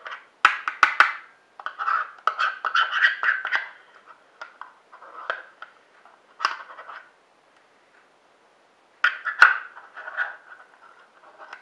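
A spoon scraping and tapping against a plastic yogurt container and bowl, getting the last of the yogurt out. It comes in bursts of scraping and clicks with a quiet gap of a second or two past the middle.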